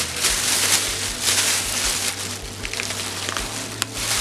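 Thin plastic shopping bag rustling and crinkling in uneven surges as hands dig through it, with a sharp click near the end.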